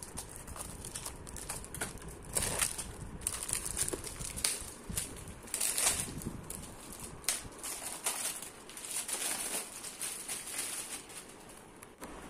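Clear plastic wrapping crinkling and rustling in irregular bursts as it is pulled off and handled while a placemat set is unwrapped.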